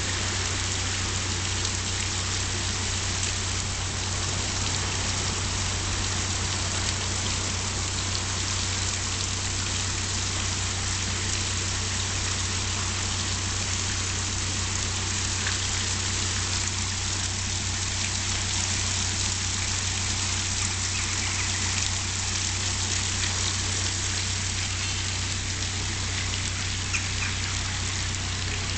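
Water rushing steadily into a canal lock chamber through the opened paddles as the lock fills, a constant hiss. Under it a narrowboat's diesel engine idles with a low, even pulse.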